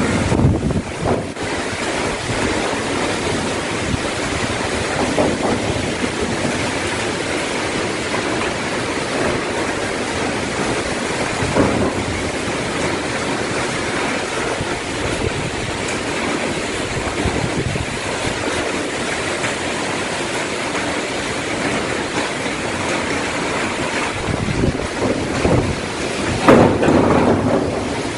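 Cyclone wind blowing steadily through trees with driving rain, with stronger gusts about twelve seconds in and again near the end.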